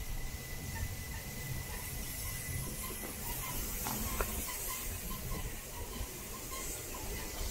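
Bernina Express train running through a tight curve, heard from on board: a low rumble of the wheels and a high hiss, with a faint steady high-pitched wheel squeal and a couple of light clicks about four seconds in.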